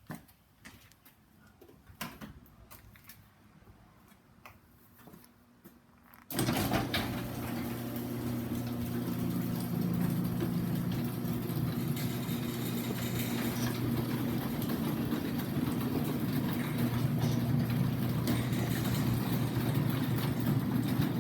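Garage door opener running: a few faint clicks, then about six seconds in the motor starts abruptly and runs steadily with a low hum as the door travels.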